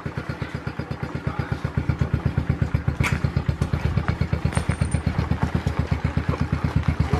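Small Kawasaki four-stroke single-cylinder dirt bike engine idling with an even, rapid putter, getting somewhat louder about two seconds in. A sharp click sounds about three seconds in.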